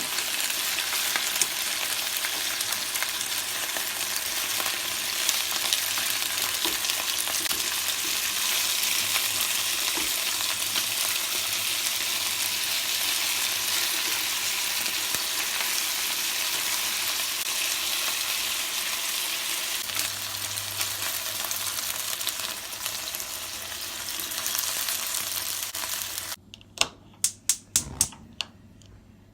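Food frying in a hot pan with a steady sizzle. Near the end the sizzle cuts off abruptly and a quick run of sharp clicks follows.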